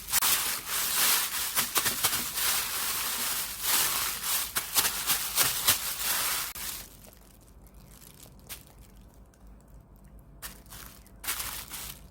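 Water-vinyl slime being squeezed and stretched by hand, giving a dense crinkly crackling for about seven seconds. It then goes much quieter, with a couple of short crackles near the end.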